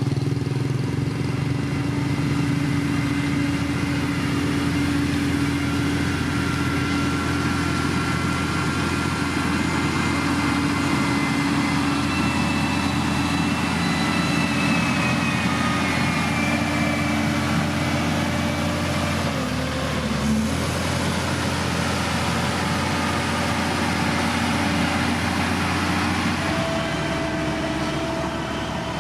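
Heavy road-building machine's diesel engine running steadily under work, with its pitch shifting briefly about two-thirds of the way in and again near the end.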